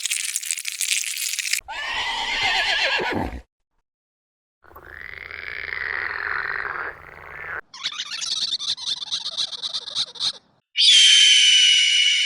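A string of different short animal calls played one after another, cut apart by a brief silence. One of the calls is a falling, pitched cry, and the loudest is a high, sustained call near the end.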